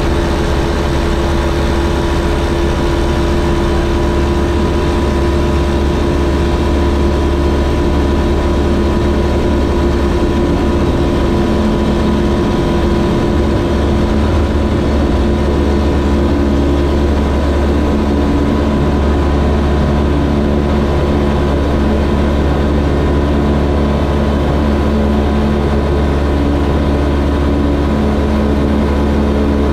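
Single-engine light aircraft's piston engine and propeller running steadily at takeoff power, heard from inside the cockpit. The engine tone shifts slightly about halfway through.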